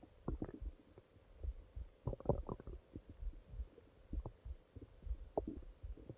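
Human stomach growling: irregular low gurgles and short squelching pops, with a quick run of them about two seconds in.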